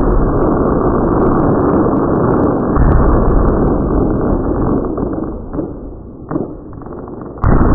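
Fireworks display: a dense, continuous barrage of bursts and crackle merging into one loud rumble. It eases off about six seconds in, then comes a single bang and a fresh loud barrage near the end.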